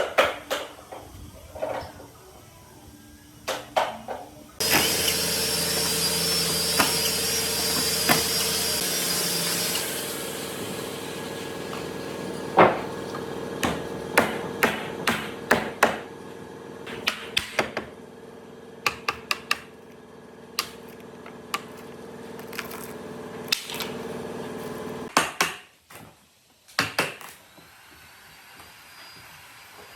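A power tool starts about five seconds in and runs steadily, dropping in level after a few seconds, then stops shortly before the end. Repeated sharp knocks and taps sound before it, over it and after it.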